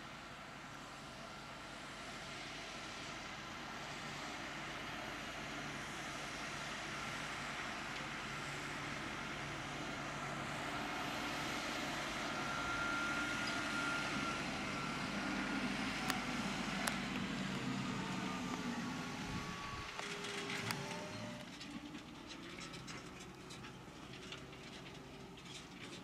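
Fendt 720 tractor's six-cylinder diesel engine running steadily under load as it pulls a reversible plough through the soil, with a thin steady high whine over the engine note. It grows louder as the tractor comes closer, drops off after about twenty seconds, and a few clicks and knocks come in the last seconds.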